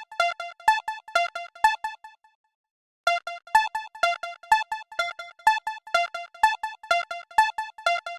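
Electronic keyboard chimes alternating between two notes, about three short notes a second, with a brief pause about two seconds in.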